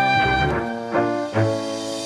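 Background music: sustained instrumental notes changing every half second or so.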